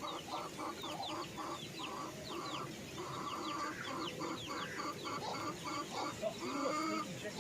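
Chickens clucking in quick, repeated calls, with chicks peeping over them in short chirps that fall in pitch.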